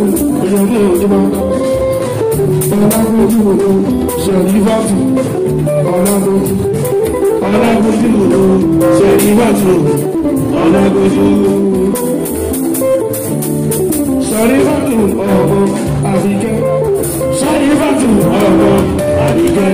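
Live Fuji band music: a plucked-string melody over percussion, with a voice singing in places.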